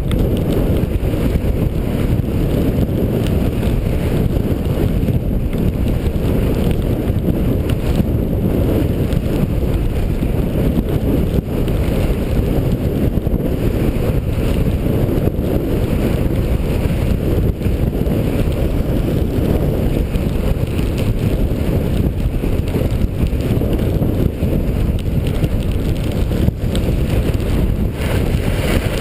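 Steady, loud wind buffeting a body-worn camera's microphone while skiing downhill, with a fainter hiss of skis sliding over snow.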